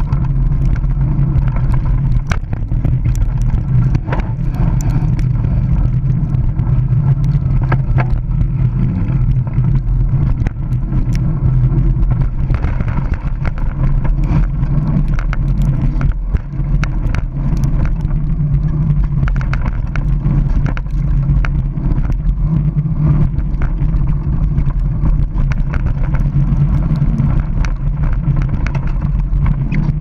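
Scott Spark mountain bike riding down a dirt trail, heard from a camera mounted low on the bike: a steady loud rumble of tyres on the dirt and air rushing past, with frequent sharp clicks and rattles from the bike over the bumps.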